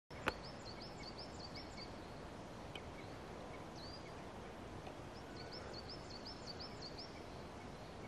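A small songbird singing, twice, a phrase of about seven identical short high notes at a quick even pace, with a few single calls between, over a steady background hiss. A sharp click right at the start.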